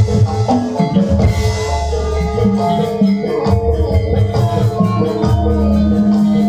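Javanese gamelan playing: mallet-struck metallophones ring out a dense run of notes over strokes of the kendang hand drum.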